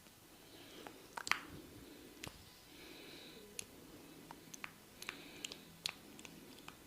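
Hands massaging a head, rubbing and pressing on skin and hair, with scattered small crackling clicks at irregular intervals. The loudest click comes a little over a second in.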